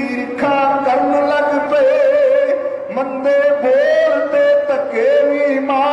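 A male dhadi singer singing a Punjabi var (heroic ballad) in long held notes that waver in pitch.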